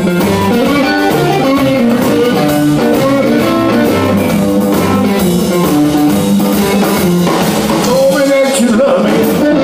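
Blues-rock band playing live: electric guitar over a stepping low bass line and a drum kit with cymbals.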